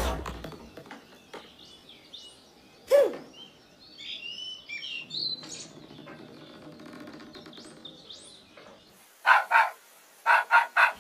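Cartoon soundtrack sound effects: a thump at the start, then bird chirping and twittering, and a few short sharp calls near the end.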